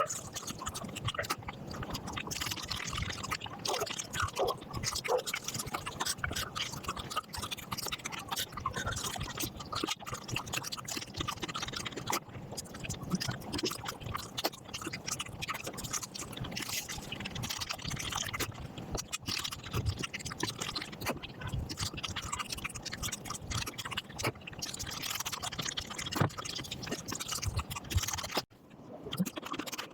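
Close-miked eating sounds played at five times speed: rapid wet chewing, smacking and clicking crowded into a continuous crackle.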